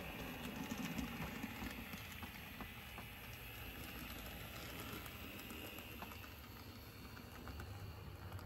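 N gauge model Class 57 diesel locomotive running along the track with its train: a faint, steady mechanical running sound with a few light clicks from the wheels over the rail joints and points, gradually fading.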